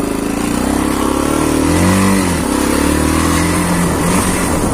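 A vehicle's engine running under load and revving, its pitch rising to a peak about two seconds in and then dropping back.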